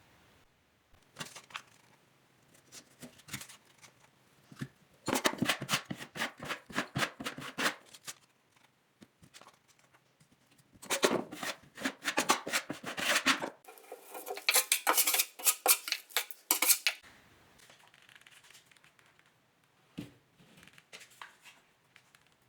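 Hand tools working drywall: rapid runs of scraping and clicking in three spells of a few seconds each, with scattered single clicks between them.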